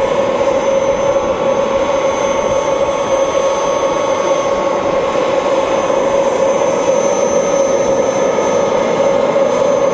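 Kerosene-fuelled model jet turbine of a radio-controlled scale F-15 running steadily at taxi idle: an even whine with a strong steady tone and fainter high tones over a rushing hiss.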